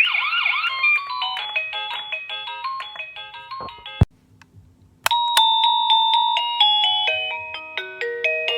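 AURTEC plug-in wireless doorbell receiver playing its electronic chime tunes: a run of quick stepping notes cuts off with a click about four seconds in, and after a second's pause a new chime melody starts.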